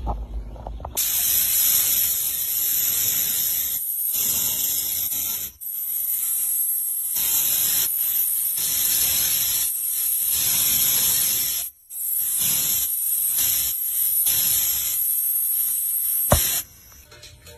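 Steady, high-pitched spray hissing onto a headlight lens. It cuts out briefly twice and stops about a second before the end.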